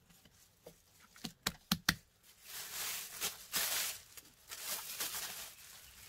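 A few light taps, then a thin plastic sheet rustling and crinkling for about three seconds as it is shaken out to cover a bowl of dough.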